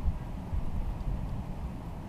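Wind buffeting the microphone: a low, uneven rumble that rises and falls in gusts.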